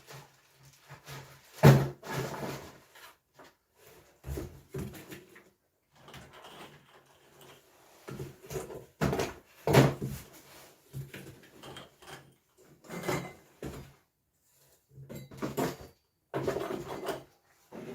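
Parts of a diesel heater kit being handled and set down: irregular knocks, clunks and rustles of components and packaging, with sharper knocks about two seconds and ten seconds in.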